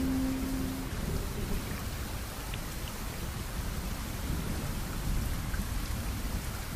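A held music note fades out about a second in, leaving steady rain noise with a low rumble underneath.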